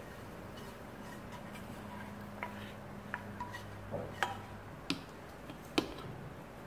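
Kitchen utensils tapping and scraping against a nonstick frying pan and a bowl as sauce is scraped out and stirred in: a few sharp, irregular clicks, the loudest near the end.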